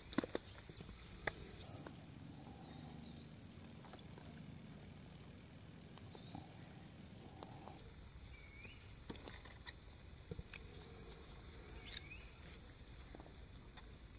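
Insects calling in a steady, high, even drone that shifts to a higher pitch for a few seconds and back. A few sharp clicks come near the start, with faint short chirps scattered through.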